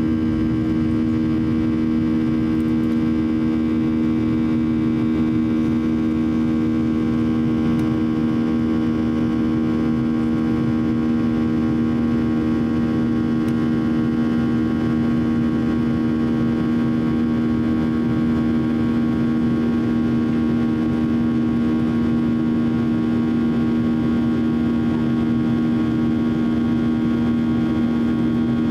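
Cabin drone of a Boeing 737-800 climbing out after takeoff, from its CFM56-7 turbofan engines: a steady hum with two strong low tones over a constant rush of air noise.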